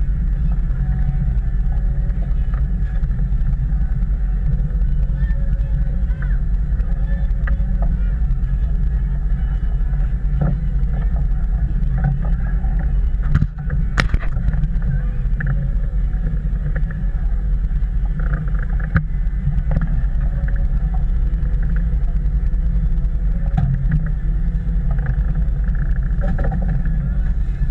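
A charter fishing boat's engines running steadily with a low drone, with one sharp knock about halfway through.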